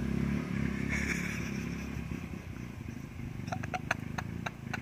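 A small vehicle's motor running and fading away, with a quick run of sharp clicks and clatters in the last second or so.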